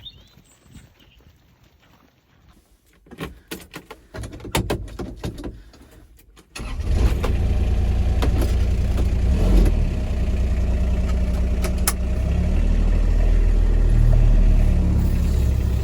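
A vehicle engine starts about six and a half seconds in and then runs steadily, after a few clicks and knocks.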